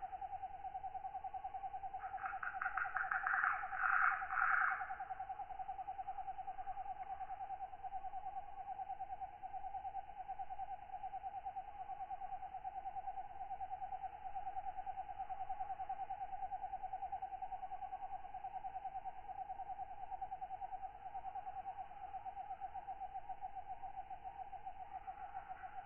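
Night insect ambience of katydids: a steady, fast-pulsing trill runs throughout, and a louder rasping katydid call sounds from about two seconds in for about three seconds. Another call starts at the very end.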